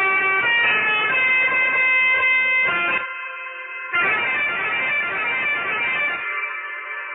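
Pianika (melodica) playing a telolet bus-horn tune: reedy held notes in quick phrases, each phrase dropping to a softer held note, about three seconds in and again near the end.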